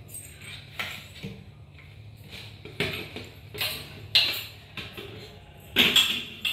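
A few scattered light knocks and clatters of a toy ball and bottles being hit and handled in play, the loudest near the end, over a low steady hum.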